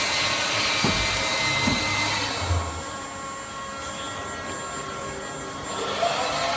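CNC machine running: a steady mechanical noise with high whines, a few low knocks early on, easing about halfway through. Near the end a motor speeds up, its whine rising in pitch.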